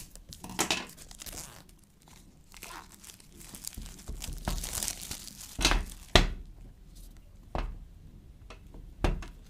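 Packaging of a Poco F1 retail box being handled and opened: irregular crinkling and rustling, with a few sharp knocks partway through and near the end.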